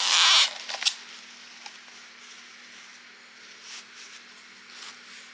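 Plastic wrapping crinkling loudly for about half a second as a packaged silicone doll head is handled, then a single click and faint rustles over a faint steady hum.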